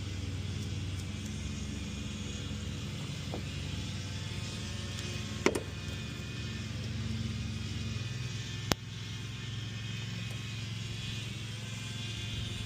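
A vehicle engine idling steadily, with two sharp clicks, one about five and a half seconds in and one about three seconds later.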